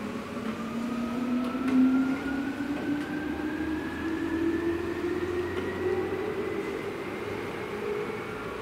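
Seibu Shinjuku Line electric train pulling away, its traction motor whine rising steadily in pitch as it gathers speed.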